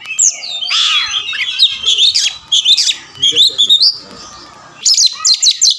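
Oriental magpie-robin singing a fast, varied string of whistles, chirps and harsh notes, with a loud, rasping falling call about a second in. After a short lull about four seconds in comes a rapid burst of sharp notes near the end.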